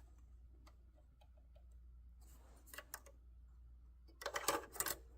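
Faint small clicks and taps from hands and tweezers working at a home serger while the needles are threaded. The clicks are scattered at first, with a quicker cluster of clicks about four seconds in.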